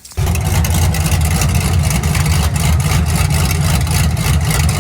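Pontiac G8 GT's 6.0-litre V8 running on freshly installed long-tube headers with no exhaust attached (header dump): a loud, raw open-header exhaust note at idle that comes in abruptly right at the start, on a cold start.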